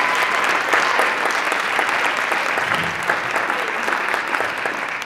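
Audience applauding, a steady crowd of clapping hands.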